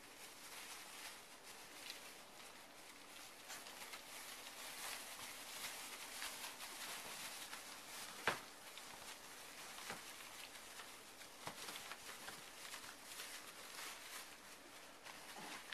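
English bulldog puppies moving about in shredded-paper bedding and lapping soft food from a dish: faint rustling with many small clicks, and one short, sharper sound about eight seconds in.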